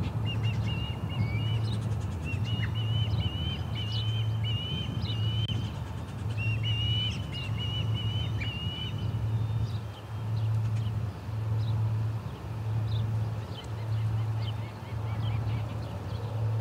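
Ospreys giving a rapid series of high whistled chirps for the first nine seconds or so, with other small birds chirping throughout. Under them runs a louder low hum that pulses about once a second.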